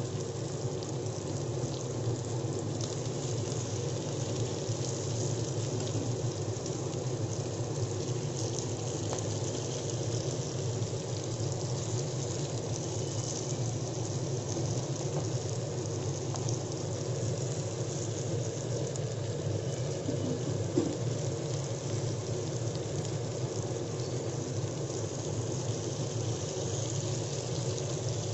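Salted dried fish and an onion-chilli mix frying in oil in a kadai: a steady sizzle with a low hum underneath, and one light knock about two-thirds of the way through.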